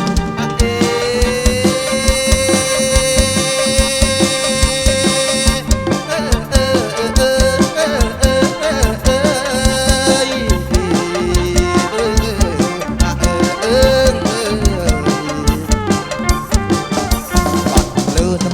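Live kantrum band music over a PA system, with a steady drum beat throughout. A lead melody holds one long note for about five seconds, then moves into a wavering, ornamented line.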